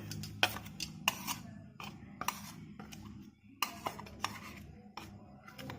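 Spoon clinking and tapping against bowls and spice containers in a series of short, irregular clicks, as turmeric powder and cumin are added to flour for batter.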